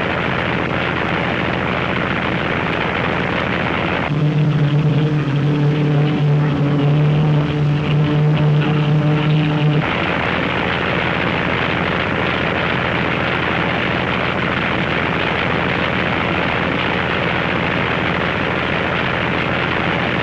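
Racing motorboat engines running, with a steady hum and hiss underneath. From about four seconds in to about ten seconds a louder engine drone at a steady pitch stands out, then drops back to the general engine noise.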